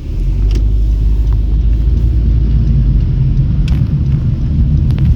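Car on the move, heard from inside the cabin: a loud, steady low rumble that sets in suddenly, with a few light clicks over it.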